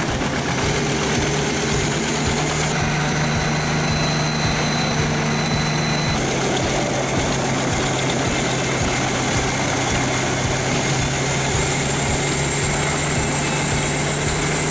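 Engine of a heavy wood-processing machine running steadily, its pitch stepping down slightly about six seconds in.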